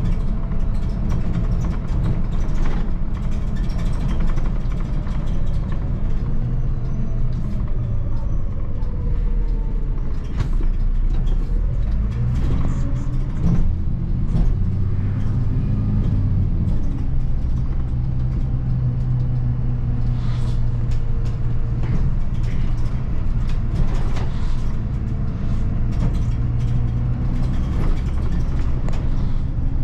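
6.9-litre turbo diesel engine of a 2004 MAN 12.223 SLF city bus running under way, heard from the driver's cab. The engine note rises and falls several times, most clearly in the middle, as the bus accelerates and slows.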